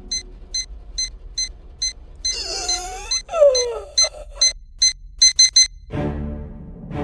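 Digital alarm clock beeping, a regular series of short high electronic beeps about two a second, broken for about a second midway by a sliding, wavering sound and ending in three quick beeps. Music swells in near the end.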